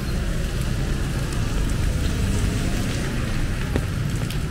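Light rain falling on wet pavement, a steady hiss, over a continuous low rumble of road traffic.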